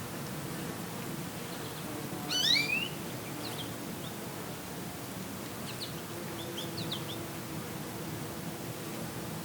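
American goldfinch chirping: a quick run of rising calls about two seconds in, then a few short chirps later, over a steady low hum and the hiss of a breeze.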